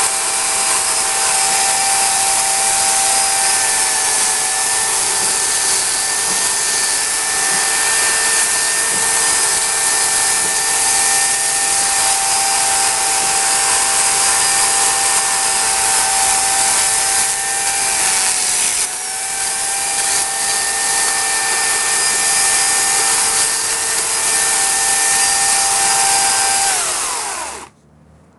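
Dolmar corded electric chainsaw running steadily with a steady motor whine as its chain cuts into a beech stump. Near the end it is switched off, and the whine falls away as the motor winds down.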